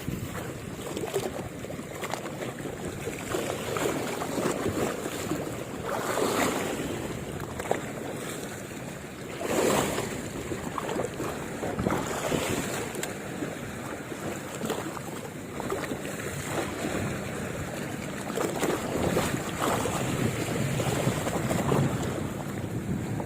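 Wind gusting across the microphone over waves washing on the shore, a rough rushing noise that swells and eases every few seconds.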